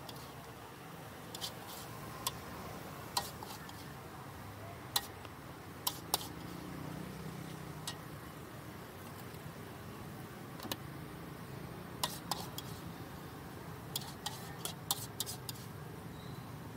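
Metal spatula clinking and scraping against a steel wok while stir-fried noodles are tossed and scooped out, in sharp, irregular clinks over a steady low hum.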